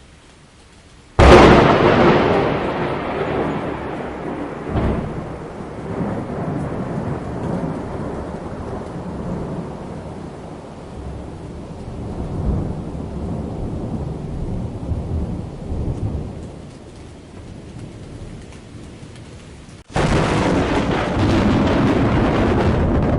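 Thunder: a sudden loud clap about a second in, followed by a long rolling rumble that slowly fades, with a second smaller crack about four seconds later. Near the end it cuts off abruptly and another loud thunder strike begins.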